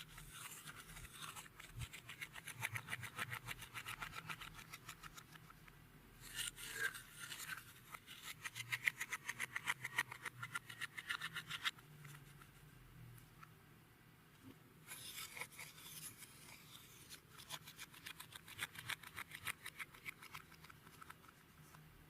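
Clear slime mixed with beads and glitter being squished and kneaded by hand, giving a fast run of small crackling clicks and pops. The crackling comes in three stretches, with a quieter pause a little past the middle.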